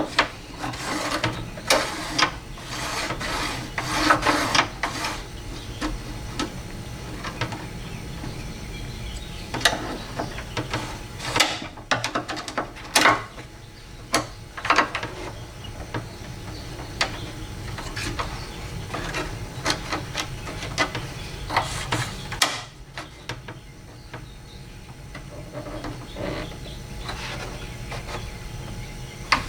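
Hand work on a car door's window regulator: irregular clicks, knocks and scraping of the metal rail, cable and plastic clips being handled and fitted, over a faint steady low hum.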